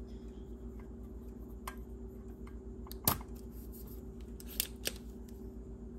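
A few sharp clicks and snaps, the loudest about three seconds in, from small tools and a bench vise being worked around a circuit board, over a steady low hum.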